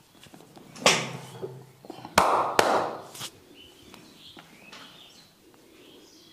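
Hand strikes of a barber's head-and-back massage: one loud slap about a second in, then three sharper slaps or claps between about two and three seconds in, with quieter rubbing after.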